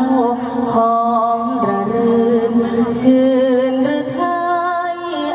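Mor lam music: a slow melody of long held notes that step and glide between pitches, with singing.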